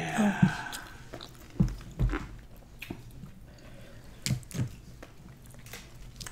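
Close-miked chewing and biting of food, a mukbang's mouth sounds: a few soft wet smacks and clicks at uneven intervals.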